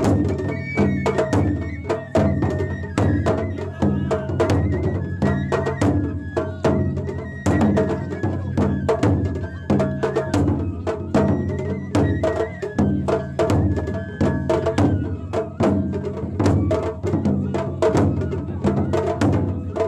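Japanese festival float music: a large taiko drum struck with two sticks in rapid, driving strokes, with a held high melody running over it.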